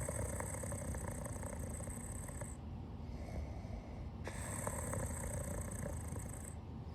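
Soft, rhythmic snoring: two long snoring breaths about four seconds apart, with small clicks of metal tweezers during them.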